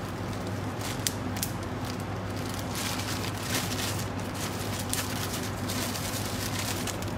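Melon seeds and cashews crackling with scattered sharp ticks as they dry-roast in a nonstick pan on a gas flame, over a steady low hum.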